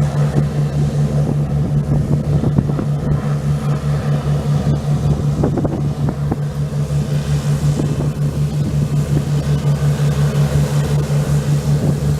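A steady engine hum, low-pitched and pulsing in a regular beat.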